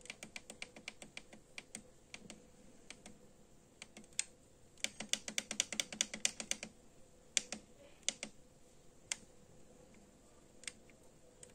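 Plastic clicking of the controls on a JVC KD-DB95BT DAB+ car radio as it is stepped through DAB channels and stations. A run of clicks opens, a faster burst of about ten a second comes near the middle, and then a few single clicks follow.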